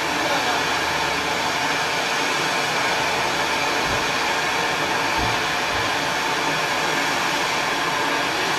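Firework fountain burning, a steady hiss of sparks spraying upward.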